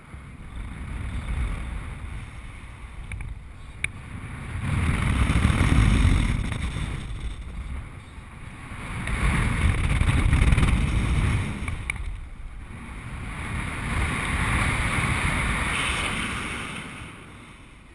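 Airflow rushing over the camera's microphone during paraglider wingovers, swelling and fading in three long surges a few seconds apart after a smaller one near the start, each surge one swing of the wing as the airspeed builds.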